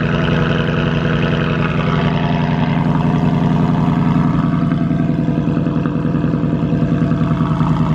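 A 2022 Ford Mustang GT's 5.0-litre Coyote V8 idles steadily just after a cold start, heard through a Corsa Xtreme active cat-back exhaust with an X-pipe. The idle is deep and even, with no revving.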